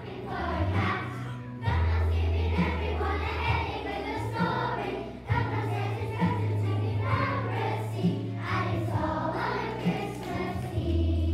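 A children's choir singing a song over instrumental accompaniment with a deep, steady bass line.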